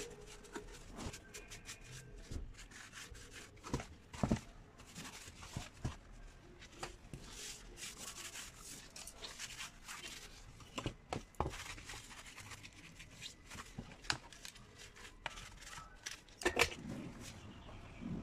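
Gloved hands wiping and handling a partly dismantled chainsaw: irregular rubbing with scattered clicks of parts, and two louder knocks, one about four seconds in and one near the end.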